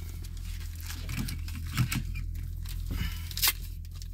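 Pokémon card pack packaging being torn and crinkled open by hand: a run of crackles and rustles, with a sharper snap about two seconds in and a louder one near the end.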